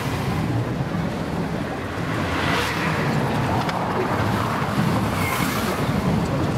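Busy city street ambience: a steady wash of traffic and crowd noise, with a car passing close by.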